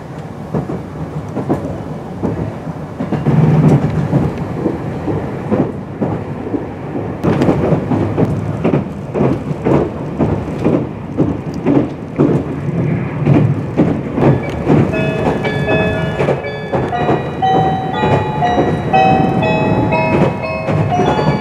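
Cabin noise of a Meitetsu 2000-series μSKY electric train running at speed: a steady rumble with rapid clattering of the wheels over rail joints. From about two-thirds of the way through, a run of short tones at stepping pitches sounds over the rumble.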